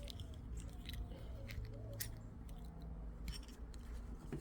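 Scattered light clicks and scrapes of small revolver parts being handled and worked by hand during reassembly of an antique Hopkins and Allen Forehand revolver's action.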